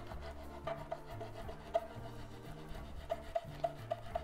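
A knife sawing back and forth between two plates, halving a layer of cherry tomatoes on a wooden cutting board: a soft rasping rub. Under it runs quiet jazzy background music with a walking bass line.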